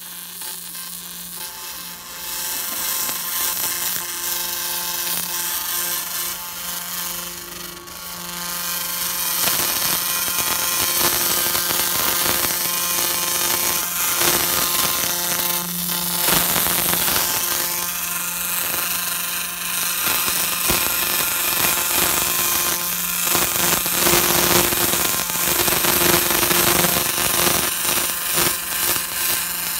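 EL.EN Laser Blaster cleaning black crust off carved stone: a dense crackling as the laser pulses strike and ablate the crust, over a steady low hum from the machine. It grows louder about nine seconds in.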